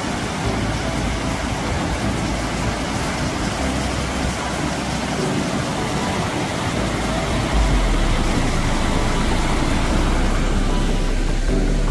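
Tall mountain waterfall and the stream below it rushing over rocks: a loud, steady roar of falling water. A deeper low rumble joins about two-thirds of the way through.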